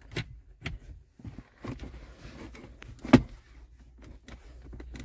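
Plastic dashboard trim panel being pressed into place by hand: a few light knocks, then one sharp click about three seconds in as it settles onto its tabs.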